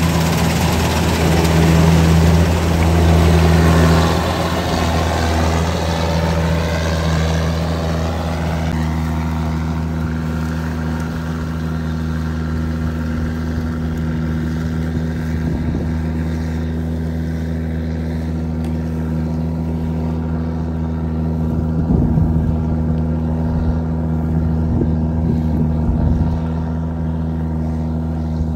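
Kubota 93 combine harvester's diesel engine running steadily under load while it cuts rice, with the rushing clatter of its cutting and threshing gear. Loudest in the first few seconds as it passes close, then fading as the machine moves away.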